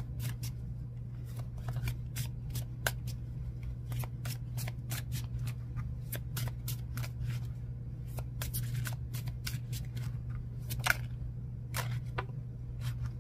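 A deck of oracle cards being shuffled by hand: a dense, irregular run of soft card clicks and slaps, with one sharper snap about eleven seconds in. A low steady hum sits underneath.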